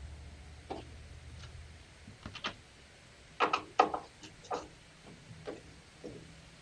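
Scattered light clicks and taps of a T15 Torx driver working out the two screws that hold the tail light housing, busiest about halfway through, over a faint low hum that fades out in the first two seconds.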